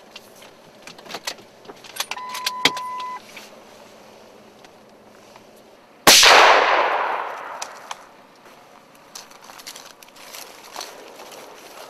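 A few clicks and a one-second electronic beep, then a single loud bang that fades away over about two seconds.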